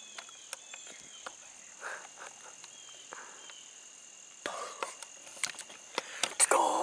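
Steady high-pitched chirring of crickets and other insects, with scattered light clicks and knocks. About six seconds in, a person starts whispering.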